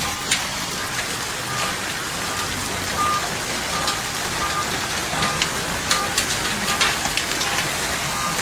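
Hailstorm: a steady hiss of falling ice and rain with many sharp cracks of hailstones striking hard surfaces. Short beeps recur through it every half second or so.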